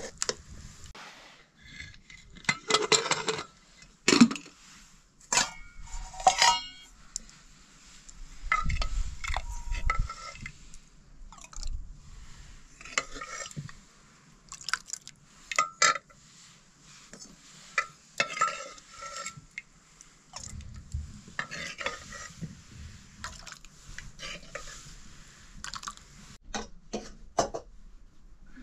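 Spoons clinking and scraping against pots and plates, in irregular bursts of clatter with short ringing notes.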